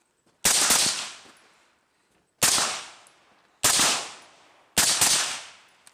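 Suppressed M4 carbine firing: four loud reports about a second or two apart, the first and last each a quick pair of shots, each trailing off over about half a second.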